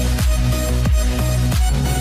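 Electronic background music with a heavy bass and a steady beat, about three beats a second.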